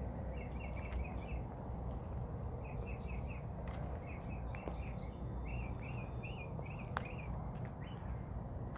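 Small birds chirping in quick groups of three to five short, high notes, repeating throughout, over a steady low rumble, with a few sharp ticks.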